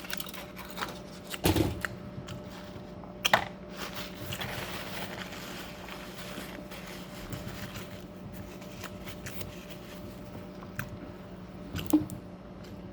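Close-up eating sounds: chewing with scattered mouth clicks and the knocks of handling food and containers, over a steady low hum.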